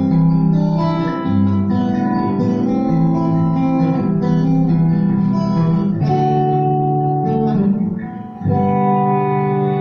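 Acoustic guitar fingerpicked, with a steady run of plucked notes over a bass line. About eight seconds in the playing briefly drops away, then a full chord is struck and rings on.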